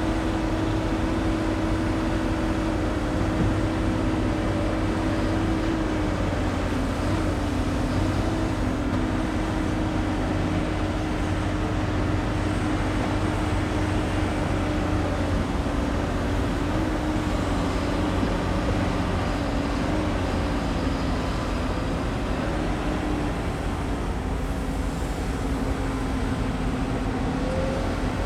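Heavy hydraulic excavator diesel engines running at work, a steady drone with a held tone that dips slightly in pitch now and then.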